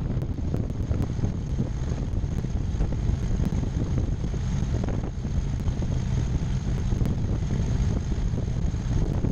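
Twin piston engines of a Cessna 340 running steadily at taxi power, a low rumble mixed with wind buffeting on a tail-mounted camera's microphone, with a faint high whine over it.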